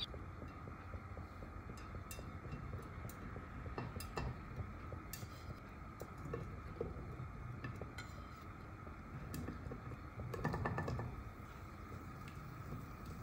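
Paneer cubes dropped by hand into a nonstick frying pan with a little oil: scattered soft taps and clicks, with a louder cluster of them about ten seconds in.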